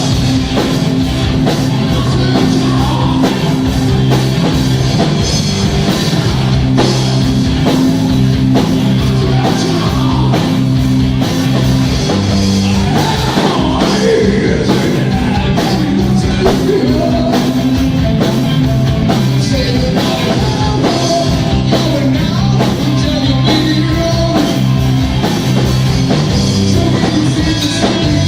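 Loud rock music with a driving drum beat and a repeating bass line, with singing.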